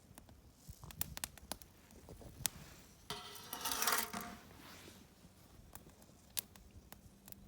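Wood campfire crackling with scattered sharp pops, and a louder rushing hiss lasting about a second and a half about three seconds in.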